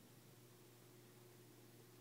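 Near silence: faint room tone, a low steady hum under a light hiss.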